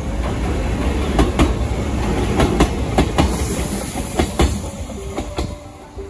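Gakunan Railway 8000-series electric train passing over a short steel girder bridge: a heavy low rumble with its wheels clacking in quick pairs over the rail joints. The sound fades near the end as the train moves away.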